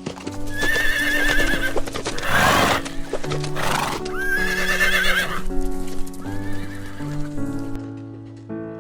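A horse whinnying three times, each a wavering call, the third shorter and fainter, with two short noisy bursts between the first two calls. Background music with sustained keyboard notes plays underneath.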